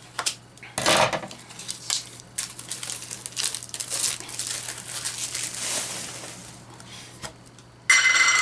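Plastic wrapping being torn and crinkled off a metal blind-box canister, with light clicks and clinks of the tin as it is handled. Near the end a sudden, louder rasping noise with a faint ringing as the canister is opened.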